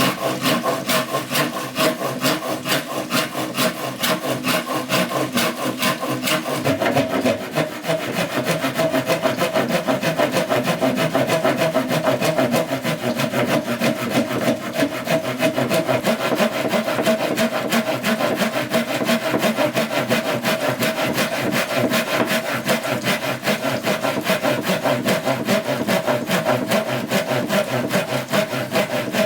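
A hand saw cutting through bamboo in steady, rhythmic back-and-forth strokes, the stroke changing slightly about seven seconds in.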